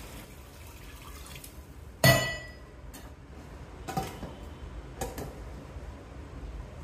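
Water pouring faintly into a stainless steel pressure cooker. About two seconds in comes a sharp metallic clang that rings on briefly, then two lighter knocks near four and five seconds as the Prestige Deluxe Alpha lid is fitted and locked.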